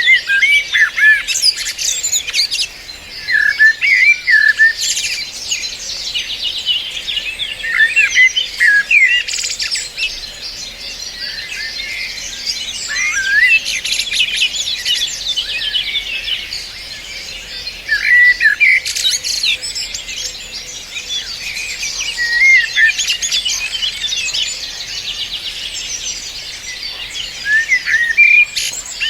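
Several birds singing together: a dense, continuous chorus of high twittering and chirps, with louder swooping whistled phrases standing out every few seconds.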